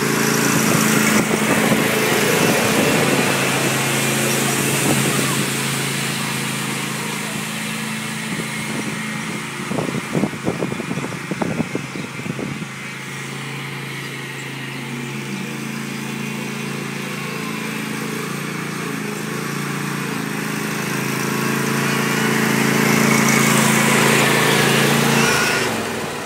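Ride-on lawn mower engine running steadily, louder as it comes close near the start and again about three-quarters of the way through. There is a spell of knocks about ten seconds in, and the engine sound drops away just before the end.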